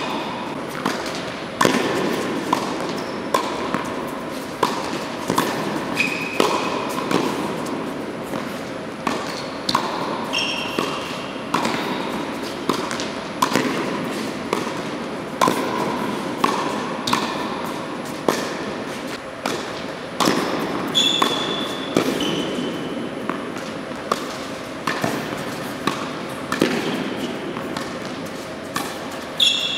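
Tennis ball hit back and forth with rackets in a quick net volley rally, a sharp hit about every three-quarters of a second, echoing in an indoor court hall. Short high sneaker squeaks on the hard court come in between some of the hits.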